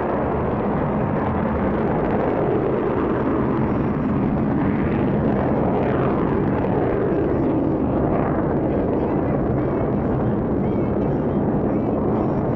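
Loud, steady jet engine noise from the Blue Angels' fighter jets flying overhead, with a few sweeps in pitch in the middle as the jets pass.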